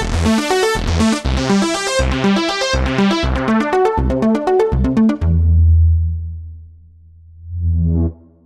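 Eighties-style synthesizer music from a sound-pack demo: a rhythmic riff of short repeated synth notes, ending in a quick run of sharp percussive hits. About five seconds in, a deep held bass note takes over, fades, swells back, and cuts off near the end.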